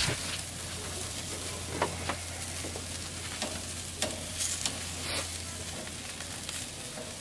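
Beef and chicken sizzling on the grate of a charcoal grill, a steady crackling hiss, with a few light clicks of metal tongs against the grate and meat.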